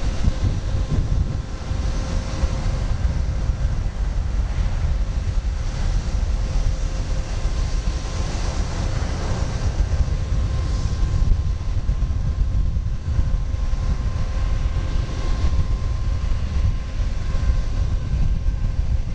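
Airbus A330-300's Rolls-Royce Trent 700 turbofans running at low thrust as the airliner taxis, a steady low rumble with a faint held whine.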